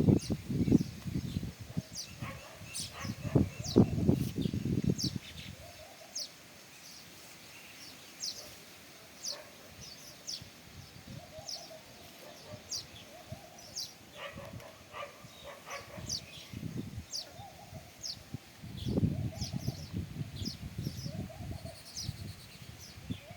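House sparrows chirping: repeated short chirps throughout. A louder low rumbling noise covers the first five seconds and returns briefly near the end.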